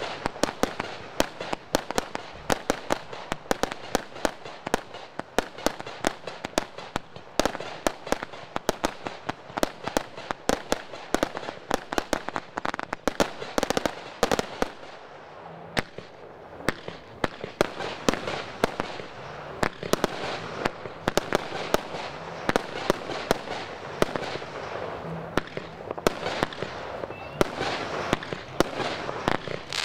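Fireworks display: a rapid string of sharp bangs from bursting aerial shells, several a second, over a continuous crackling hiss.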